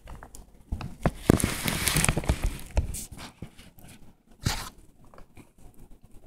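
A praying mantis chewing through the hard shell of a Dubia roach, making a run of crackling crunches that is densest in the first two or three seconds, with one more short crunch a little later.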